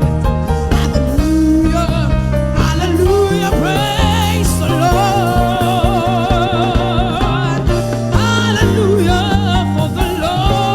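Gospel worship music: a voice holds long, wavering notes over steady sustained chords and a regular beat.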